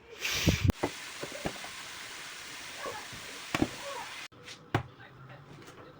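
A few sharp knocks and clatters over a steady hiss; the hiss cuts off abruptly a little after four seconds in, and a few lighter knocks follow.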